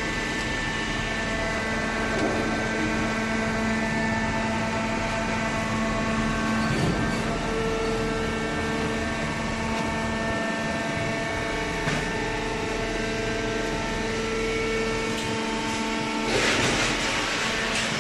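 Hydraulic baler machine running: a steady mechanical hum with several held whining tones. A rush of hiss joins in near the end.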